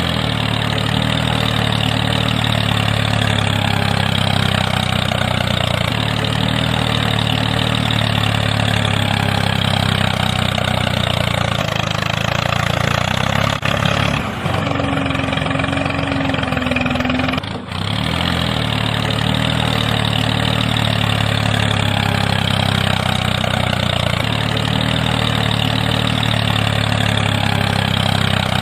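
Small engine running steadily at idle. The sound breaks off briefly twice, about halfway through and again a few seconds later.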